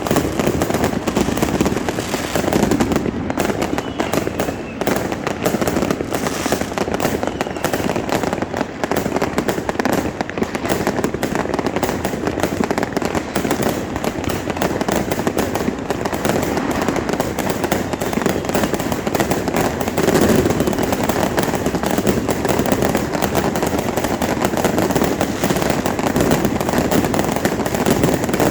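Fireworks crackling and popping in a dense, rapid, continuous barrage.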